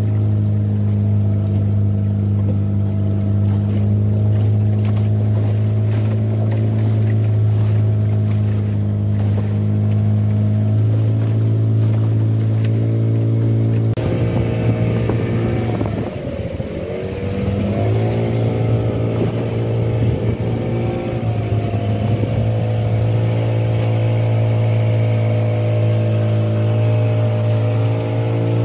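A small fishing boat's engine running steadily while the boat trolls under way, with water rushing along the hull. About halfway its pitch dips briefly and then comes back up to the same steady note.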